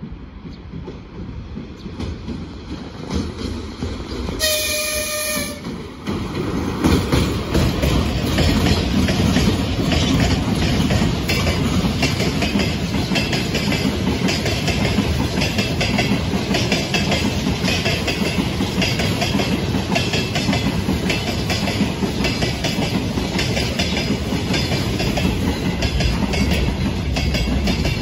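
VL80S twin-unit AC electric locomotive with a freight train approaching, sounding one short horn blast about four and a half seconds in. It then passes close by, and the wagons' wheels clatter rhythmically over the rail joints. The sound grows loudest about seven seconds in and stays steady after that.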